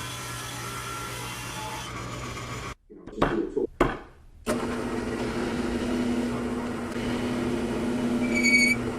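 Electric woodshop power tools running, with a break and a few short loud bursts partway through, then another machine running steadily with an even hum. A brief high-pitched squeal comes near the end.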